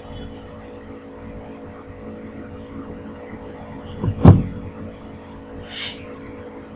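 Steady low electrical hum and background noise picked up by the recording microphone. There is one loud thump about four seconds in and a brief hiss a second and a half later.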